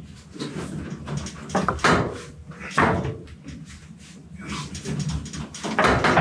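Irregular knocks and creaks, with straining noises, as a heavy car is pushed by hand to roll it up onto a thick wooden board.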